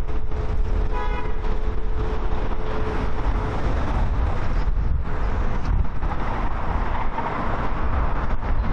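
Steady low engine rumble with a continuous hum over it, and a short high toot about a second in.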